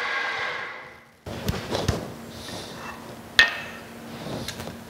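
Milling machine spindle running and winding down to a stop over the first second or so. Then steel parts knock and clink as the freshly milled arbor and its holding block are lifted out of the vise, with one sharp metal clink about three and a half seconds in.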